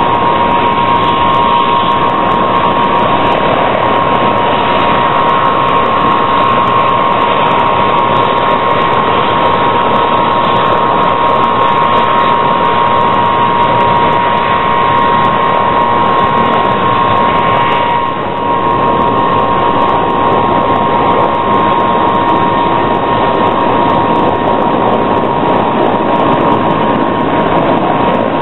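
Steady, loud turbine aircraft engine noise with a high steady whine, heard from inside an aircraft cabin on the ground; it dips briefly once about two thirds of the way through.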